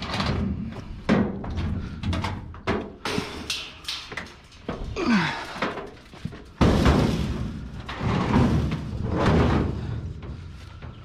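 Repeated clanks, knocks and thuds of a sheet-metal Electrolux appliance being handled, with a short scrape about five seconds in and the loudest bang about six and a half seconds in.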